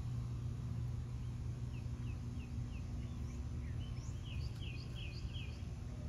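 Small songbird chirping: a run of short, falling chirps, about three a second, joined partway through by higher chirps from a second voice, over a steady low hum.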